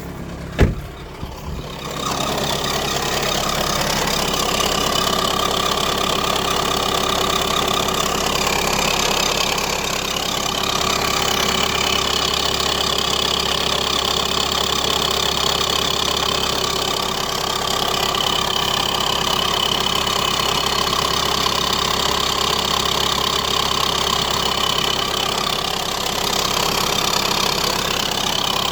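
A 1.7 CDTI A17DTE four-cylinder turbodiesel catches on a cold start about two seconds in, after a single sharp knock, then idles steadily. This is a cold start with an extraneous noise that the owner is trying to trace.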